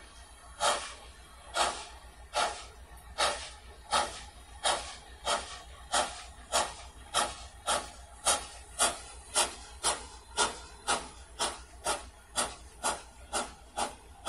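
Exhaust beats of the approaching steam locomotive Big Jim, a USATC S160 2-8-0, chuffing hard: evenly spaced sharp chuffs that quicken from about one a second to about two a second as it gathers speed.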